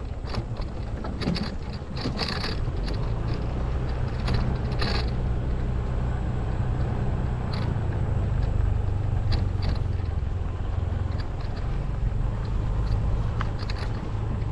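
Honda ADV150 scooter's single-cylinder engine running steadily at low speed on a rough dirt trail, with scattered knocks and rattles as it rides over bumps.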